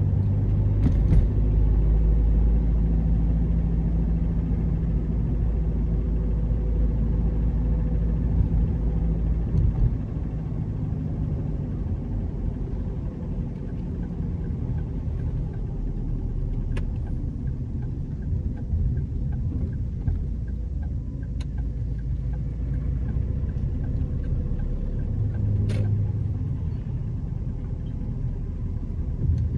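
Car driving along, with a steady low rumble of road and engine noise that is heavier for about the first ten seconds and eases after that. A few faint clicks are heard.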